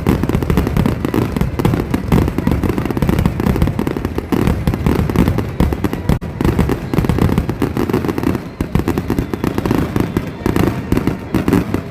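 Fireworks going off in a dense, continuous barrage: many loud bangs and pops in quick succession, with no pause.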